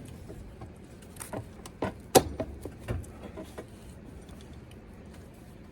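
Metal parts of a large circuit breaker knocking and clinking as it is handled and laid down: a few separate clicks and knocks, the loudest about two seconds in.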